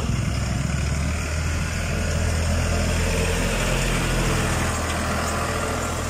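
Street traffic dominated by the steady low hum of heavy vehicle engines idling close by, a loaded truck and a tractor towing a water tank.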